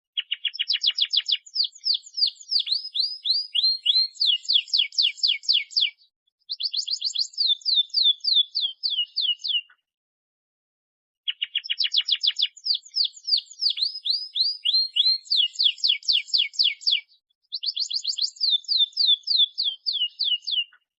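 Domestic canary singing long runs of rapid trilled phrases, high-pitched and fast. There are two near-identical song bouts about ten seconds each, with a short pause between them.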